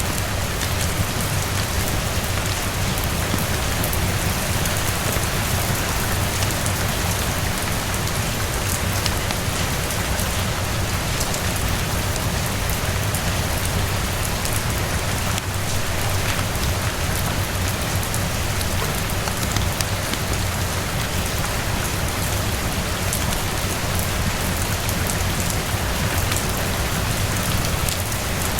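Steady heavy rain falling on a surface, an even hiss dotted with fine drop ticks over a constant low rumble.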